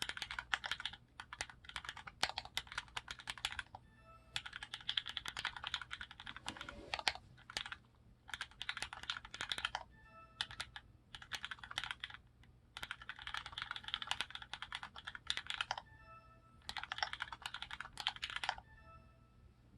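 Custom mechanical keyboard with lubed Cherry MX Black linear switches and GMK Signal keycaps being typed on in fast bursts with short pauses. A faint short ringing tone sounds in some of the pauses.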